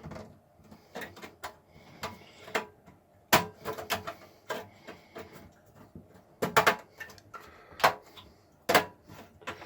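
Sheet-metal I/O shield being pushed and snapped into a PC case's rear opening: a series of irregular sharp metallic clicks and knocks, the loudest about a third of the way in and several more in the second half.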